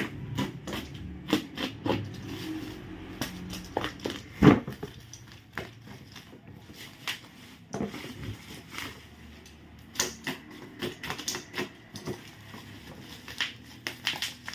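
Packaging being handled and opened by hand: irregular clicks, crinkles and scrapes of cardboard and plastic, with one louder thump about four and a half seconds in.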